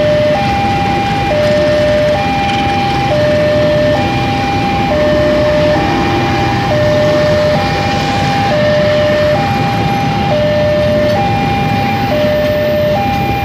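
Railway level-crossing warning alarm sounding, alternating steadily between a lower and a higher tone, each held just under a second. Under it, the steady noise of a passenger train passing over the crossing.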